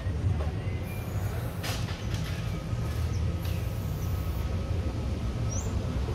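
Aerosol spray-paint can hissing in two bursts of about a second each, over a steady low rumble; a short rising bird chirp near the end.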